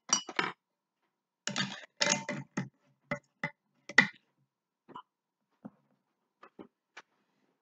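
A metal screw lid being fitted and twisted down onto a glass mason jar: a run of scraping and clinking handling noises, loudest with a sharp clack about four seconds in, then a few faint clicks.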